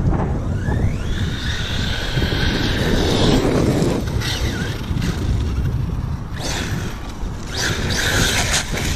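Arrma Kraton EXB 1/8-scale RC truggy's brushless motor whining as it speeds up, the pitch rising and then holding steady for a few seconds, over the crunch of its tyres on gravel. Near the end come two rushes of noise as the truck spins its tyres and sprays stones.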